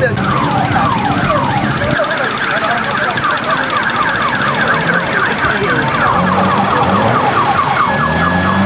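Vehicle's electronic siren sounding a rapid, repeating falling wail. The sweeps quicken about halfway through.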